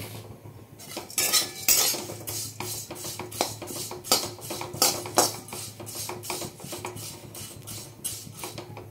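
Metal spatula scraping and stirring flattened rice (chire) in a metal kadai, in quick repeated strokes against the pan. The rice is being roasted until it turns reddish.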